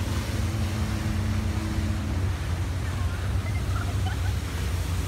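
Motorboat engine running over water, with wind buffeting the microphone. A steady engine hum underneath drops away about two seconds in.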